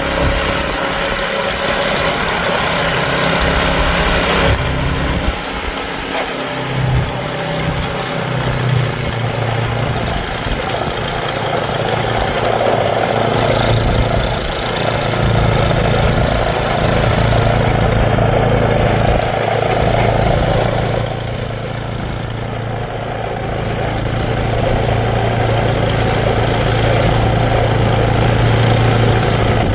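Sears Craftsman snowblower engine running steadily with the auger driven through deep, crusty snow. The sound dips in level briefly about five seconds in and again after about twenty seconds. The new auger belt is slipping a little on the pulleys because it is not quite tight enough.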